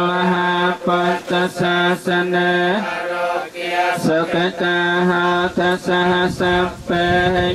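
Buddhist monks chanting Pali blessing verses on one steady pitch, with short breaks for breath about every second.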